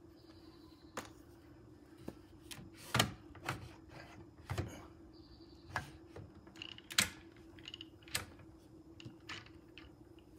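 Irregular clicks and knocks, roughly one a second, of a mountain bike being set into a Rockymounts Tomahawk roof-mounted bike rack, with its hold-down arm and strap worked into place over the wheel. The loudest knocks come about three and seven seconds in.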